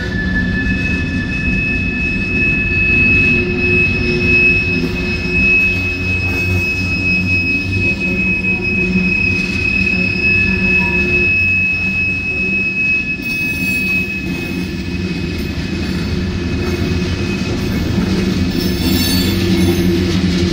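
Freight train cars rolling past: a steady rumble of steel wheels on rail, with a long, high, steady wheel squeal that stops about two-thirds of the way through.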